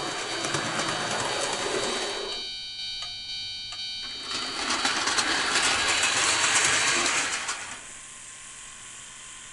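O-gauge model railroad crossing mechanism running: a small motor whirs in two spells, about two seconds and then about three seconds long, the second louder, over a steady high electrical tone.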